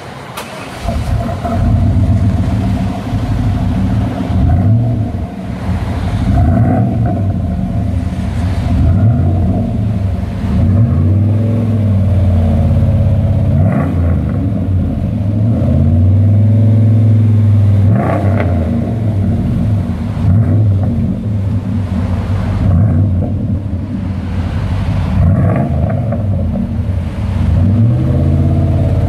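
1998 GMC Sierra's 5.7-litre V8 running through a true dual exhaust with an X-pipe and Street Demon performance mufflers, idling and being revved several times, each rev rising and falling back.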